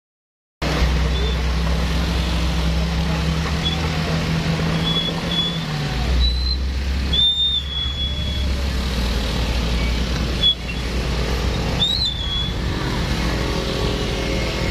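Engines of motorcycles and cars running in slow, stop-start traffic, a steady low hum that changes about halfway through, with short high-pitched tones now and then.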